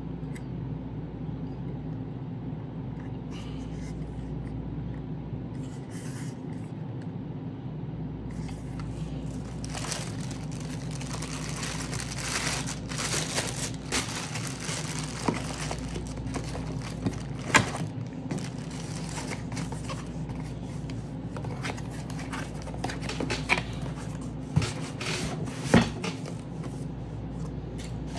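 Speaker packaging being handled: intermittent scraping, rustling and crinkling with a few sharp clicks, growing busier about ten seconds in, over a steady low hum.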